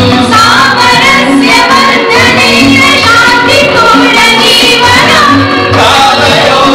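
Mixed group of men and women singing a Sanskrit song together, accompanied by tabla.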